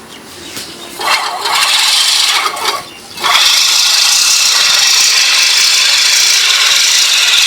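Hand-pushed reel lawn mower cutting grass: a steady whirring rattle of the spinning blades. It picks up about a second in, dips briefly just before three seconds, then runs on steadily and loud.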